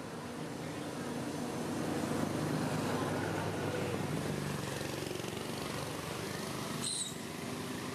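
A motor vehicle engine passing, growing louder for a couple of seconds and then fading. A brief sharp high squeak near the end.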